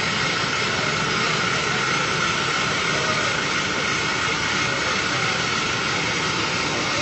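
An engine running steadily under a continuous hissing rush, with a faint held whine; nothing starts, stops or changes.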